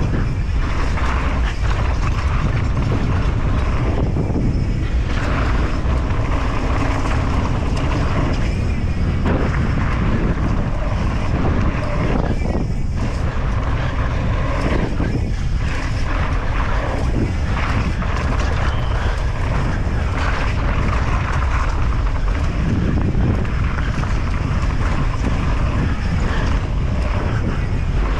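Downhill mountain bike descending a dirt track at speed: loud wind rush on the microphone, tyres on dirt, and the bike clattering with frequent knocks over rough ground.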